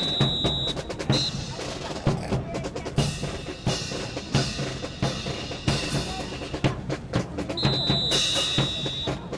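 Marching drum cadence, snare and bass drum striking in a steady rhythm for a drill team. Near the end a long, high whistle blast sounds, followed by a short one.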